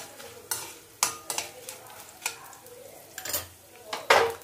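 Steel spoon scraping and stirring pieces of edible gum (gond) roasting in ghee in a stainless-steel kadhai. It comes as about six irregular strokes, the loudest near the end, over a faint sizzle of the gum frying on a low flame.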